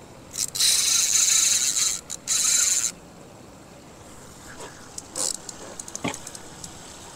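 Fishing reel drag buzzing in two bursts, the first about a second and a half long and the second shorter, as a big fish pulls line off the reel. Then comes a run of light knocks, ending in one sharper knock.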